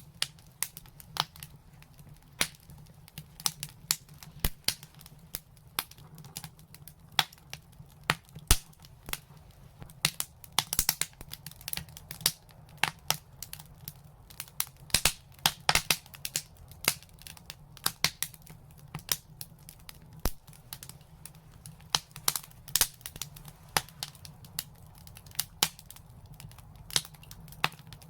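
Wood fire crackling, with many irregular sharp snaps and pops, over a faint steady low hum.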